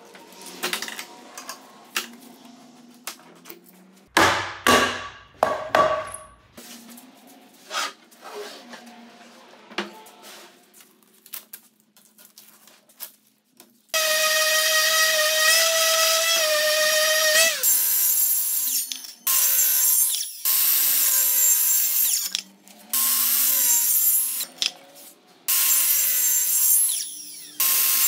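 Clicks and a few loud knocks as bar clamps are set and tightened on a wooden slab joint. About halfway through, a cordless random orbital sander runs steadily for a few seconds. Then a Milwaukee M18 cordless circular saw makes several short cuts into the end grain of the slab, each two seconds or so, its pitch dipping as the blade bites.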